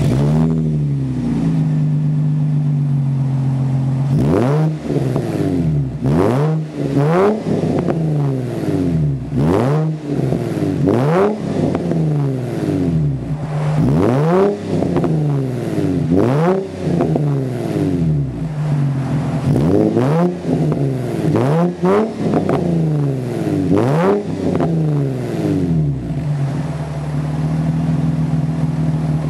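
Nissan 350Z's V6 with an aftermarket Spec-D dual catback exhaust, deep and loud: idling, then free-revved in about a dozen quick blips, each rising and falling in pitch, before settling back to idle near the end.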